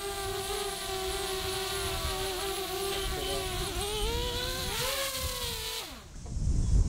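Small quadcopter drone hovering close by, its propellers giving a steady buzzing whine. The pitch wavers and rises as the drone is caught in the hand, then glides down and stops about six seconds in as the motors shut off. Wind buffets the microphone near the end.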